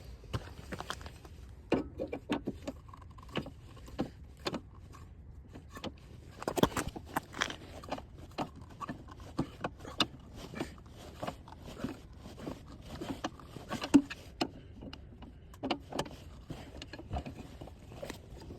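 Irregular metallic clicks, clanks and scrapes of tire-changing tools (car jack and lug wrench) being worked, with one louder knock about 14 seconds in.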